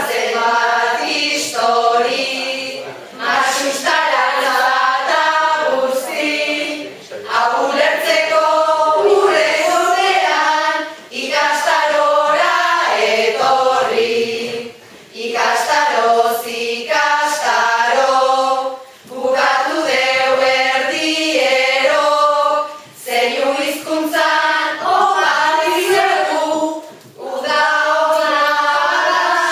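A group of voices singing Basque verses (koplak) together, phrase after phrase of about four seconds, each ending in a short dip before the next line.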